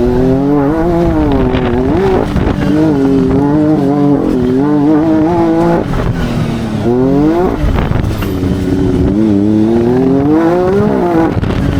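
Can-Am Maverick R's turbocharged three-cylinder engine running hard as the side-by-side drives, its pitch rising and falling with throttle, with a quick climb in revs about seven seconds in and another near the end.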